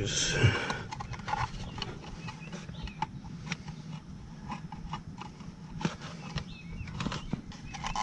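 Handling noise from work inside an outdoor AC condenser unit: irregular clicks, taps and rustles as hands move among the compressor's wiring and the dry leaves around it.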